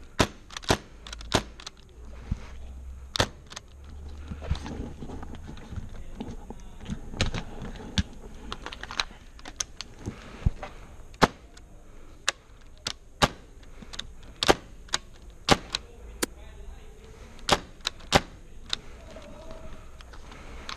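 Airsoft guns firing single shots: sharp cracks at irregular intervals, roughly one or two a second, some in quick pairs.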